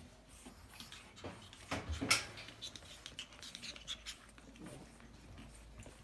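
Pug puppies scuffling in play on a rug: scattered light scratches and taps of paws and claws, with one sharper click about two seconds in.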